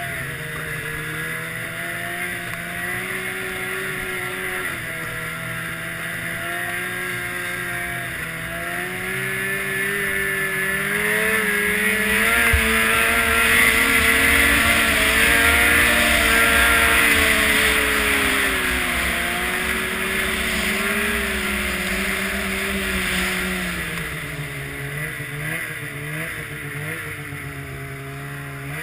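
Snowmobile engine running under way, its pitch and loudness rising to a peak about halfway through as it speeds up, then easing back toward the end, with a rushing noise that grows and fades along with the speed.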